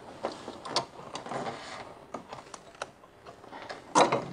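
Light, irregular clicks and taps of a metal wrench and small parts being handled as a brake master cylinder is worked free of its mounting, with a sharper knock near the end.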